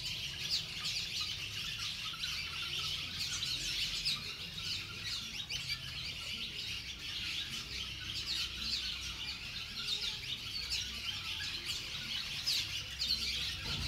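A large flock of swallows calling inside a cenote cavern: many overlapping short, high chirps and twitters, non-stop.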